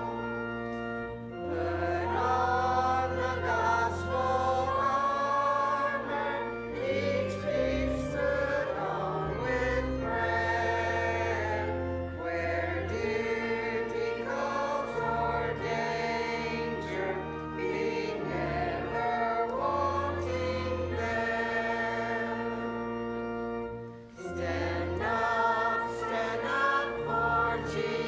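Choir singing with instrumental accompaniment: held chords over long sustained bass notes, dipping briefly before picking up again near the end.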